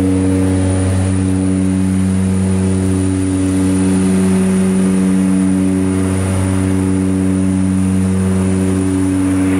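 Propeller and engine drone of a twin-engine turboprop in cruise, heard inside the cockpit: a steady hum of several even tones over a constant hiss of engine and air noise.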